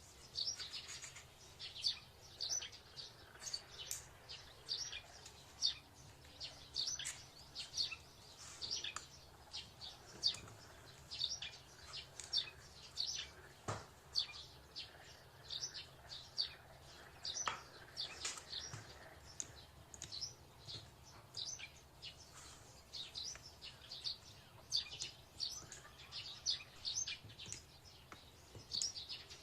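Small birds chirping: many short, high chirps in quick irregular succession, over a faint steady low hum.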